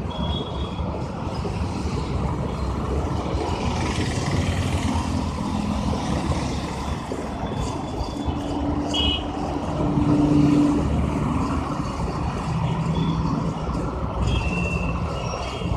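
Steady road traffic noise from passing motor vehicles, with a few short high tones over it.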